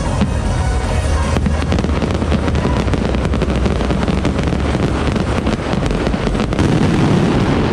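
Aerial fireworks bursting in quick succession, a dense, continuous run of bangs and crackles that thickens a little over a second in.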